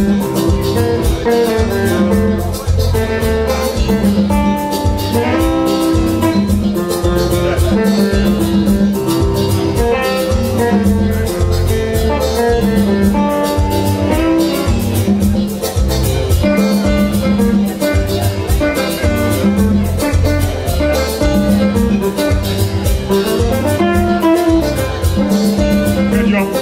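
Semi-hollow-body electric guitar played live through an amplifier, picking a melody line of single sustained notes over a steady beat with a pulsing bass line.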